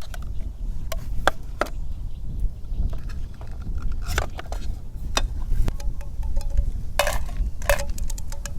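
A string of sharp clicks and knocks, the two loudest near the end with a brief ringing tone, over a steady low rumble.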